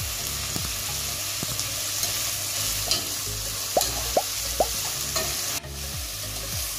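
Chopped shallots, drumstick and potato sizzling in hot oil in a pot while a spatula stirs them, with three short squeaky scrapes about four seconds in. The sizzle breaks off briefly near the end.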